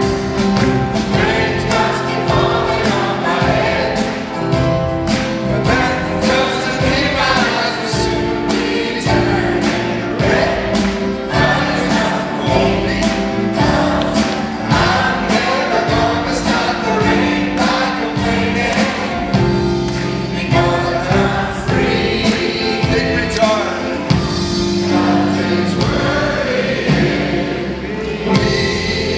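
A live pop band playing with a group of singers in harmony, over grand piano, keyboards, electric bass and a drum kit keeping a steady beat.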